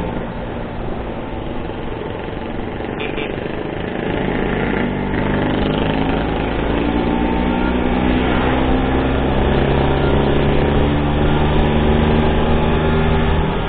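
Vespa scooter engine running under way, its pitch climbing steadily as it gathers speed, then dropping sharply near the end. Wind rushes over the microphone throughout.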